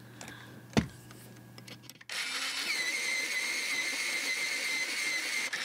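Battery-powered auto-feed electric pencil sharpener starting about two seconds in and running steadily with a thin whine as it grinds a coloured pencil. A light knock comes about a second in, before the motor starts.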